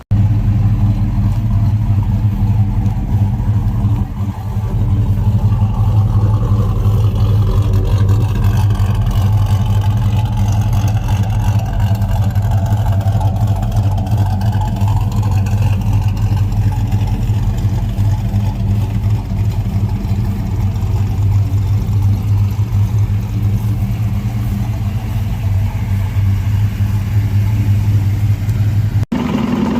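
Vehicle engine running steadily and loud, with a deep even hum. It cuts in abruptly at the start and drops out for an instant near the end.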